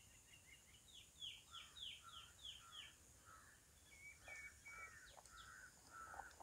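Faint birdsong in the background: a quick run of short chirps, then about six fast downward-sweeping notes, then a run of lower repeated notes, with a few faint clicks in the second half.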